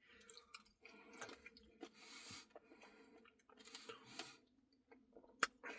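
Faint close-up chewing and wet mouth clicks from eating a Reese's Pieces Cookie Dough Blizzard, with scattered small clicks and a couple of soft, longer chewing stretches.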